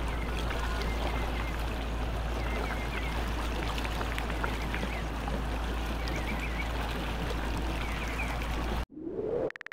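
Steady waterside ambience: water noise over a low rumble, with faint short chirps. It cuts off suddenly near the end, followed by a brief rising swoosh and a few clicks.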